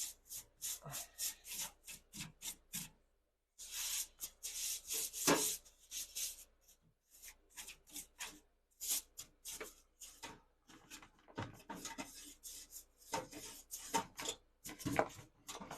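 Repeated short rubbing or scraping strokes, a few a second, with a brief break about three seconds in.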